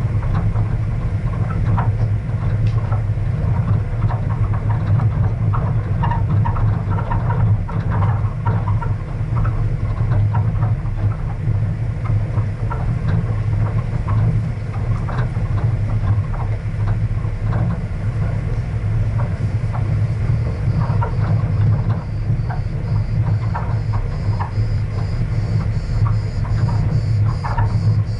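Car driving along a gravel dirt road: a steady low engine and road rumble with frequent small knocks and rattles from the rough surface. A faint, rhythmic high-pitched buzz comes in during the last several seconds.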